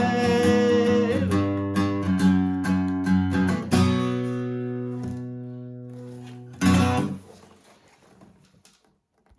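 Guitar closing out a country song: a run of picked notes, a chord left ringing and slowly dying away, then one short final strum that is stopped, leaving near silence at the very end.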